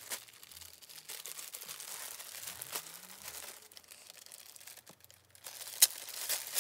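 Thin clear plastic packaging bag crinkling as it is handled. Near the end come a few sharp, loud tearing snaps as the bag is pulled open.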